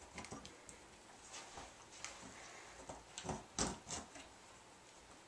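Faint handling of a metal umbrella shaft at a light stand's umbrella bracket, with a few light clicks and knocks about three to four seconds in.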